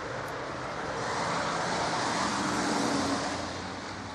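A pickup truck driving by on a wet road: engine and tyre hiss swell, loudest about three seconds in, then ease off.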